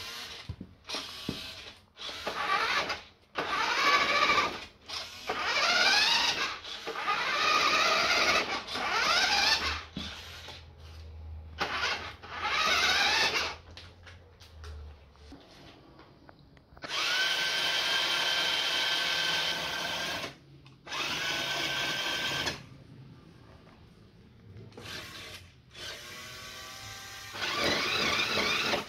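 A small electric motor, like a power drill's, whirring in repeated runs of one to three seconds, its pitch climbing as it spins up in the earlier runs. Later come two steadier runs of about three seconds each, and a last short one near the end.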